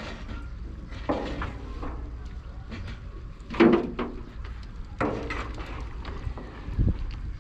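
A large metal ladle scraping and knocking in a big cooking pot of simmering broth, three separate strokes over a steady low rumble, with a short low thump near the end.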